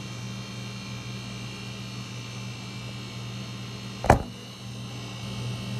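Steady low electrical hum, with one sharp knock about four seconds in as the phone recording it is handled.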